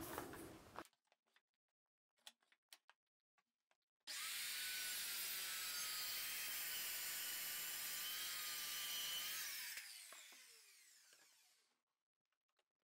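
Corded circular saw running on a guide rail, cutting through a coated worktop panel with a steady high whine for about six seconds, starting about four seconds in. It is then switched off and the blade spins down in a falling whine. A few faint clicks come before the cut.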